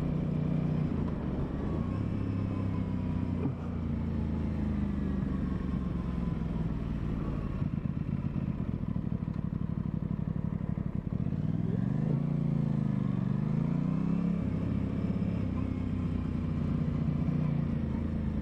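2023 Aprilia Tuono 660's parallel-twin engine running under way. About twelve seconds in, the revs climb, dip briefly and climb again, then settle back to a steady note.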